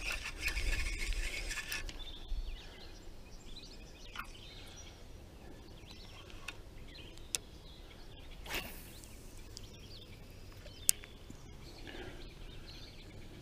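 Quiet lakeside ambience with faint bird calls, under handling noise from a spinning rod and reel: a rustle at the start, a brief swish about eight and a half seconds in, and a few sharp clicks.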